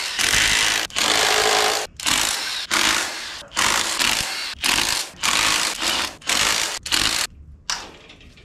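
Cordless impact wrench hammering in about ten short bursts, each under a second, loosening the connecting-rod nuts on a Chevy 283 V8 block so the pistons can be pulled. The bursts stop a little after seven seconds.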